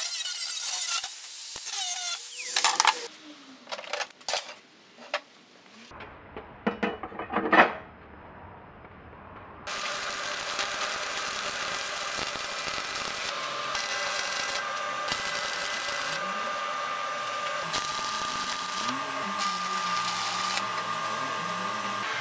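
An angle grinder cutting steel diamond plate for the first few seconds. Then a series of separate metallic knocks and clanks. From about ten seconds in, the steady crackling hiss of stick (arc) welding on a steel frame.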